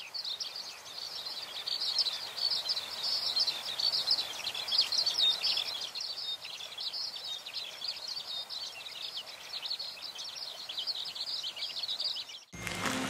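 A dense chorus of high chirping birds over faint outdoor background noise. It cuts off abruptly near the end as music begins.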